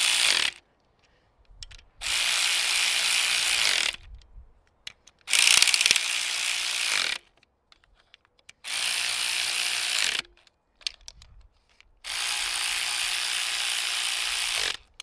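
ACDelco 3/8-inch brushed cordless electric ratchet running in five short bursts, driving 10 mm valve cover bolts tight. Each run ends as the ratchet stops at a tightened bolt.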